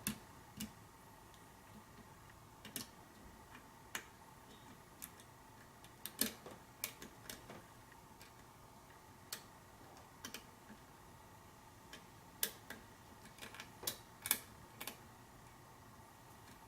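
Faint, irregular small metallic clicks and taps, spaced a second or so apart with a few louder ones, from a hook pick and tension wrench working the pins of a pin-tumbler challenge lock during single-pin picking.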